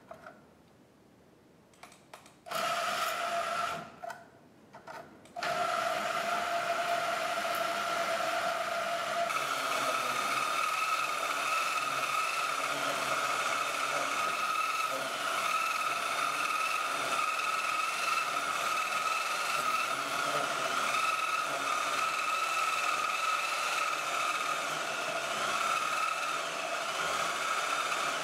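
Portable band saw (portaband) cutting through the metal sleeve of a leaf-spring bushing. It runs briefly about two and a half seconds in, stops, then starts again at about five seconds and runs on as a steady whine while it cuts.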